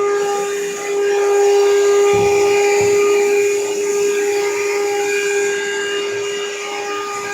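Vacuum cleaner running steadily with a high motor whine, with two dull knocks a little over two seconds in.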